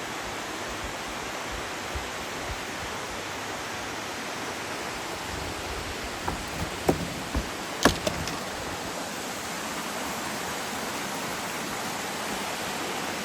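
Waterfall rushing with a steady, even noise. A few short sharp clicks come between about six and eight seconds in, the loudest near eight seconds.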